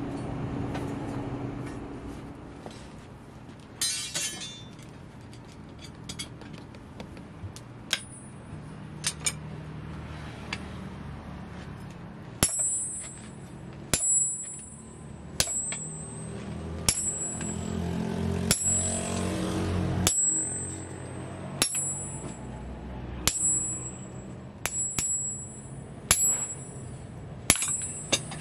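Blacksmith's hammer striking a glowing steel bar on the anvil: single ringing metallic blows about every second and a half through the second half, after a few lighter clinks. A low steady rumble from the coal forge runs underneath.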